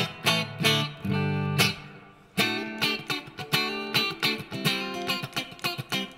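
Epiphone Les Paul Standard Pro electric guitar played clean through a Marshall MG30FX amp, pickup selector in the middle position with both humbuckers coil-split for a single-coil tone. A few chord strikes and a held chord that dies away about two seconds in, then a quick run of picked notes and chords.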